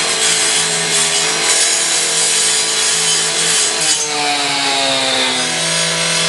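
Gas-powered partner saw (two-stroke rotary cut-off saw with a 14-inch blade) running at full throttle while cutting through a sheet-metal garage door. About four seconds in, its pitch drops for a second or so before it steadies again.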